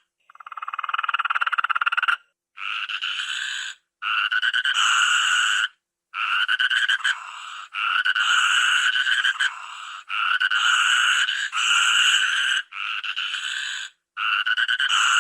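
Toucan calling: a run of rapid, rattling croaks repeated in phrases of about a second and a half to two seconds, with short breaks between them.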